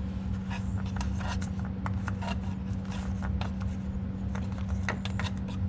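Scattered light clicks and scrapes of hands handling small parts under a car's hood, around the oil filler cap just taken off, over a steady low hum.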